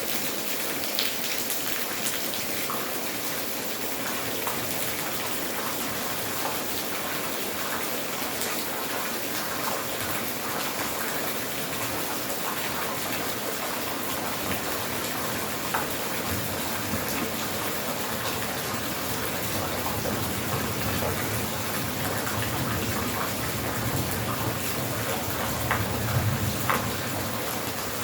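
Steady rain falling: an even hiss with scattered single drop taps. In the last several seconds a low rushing sound of running water swells up.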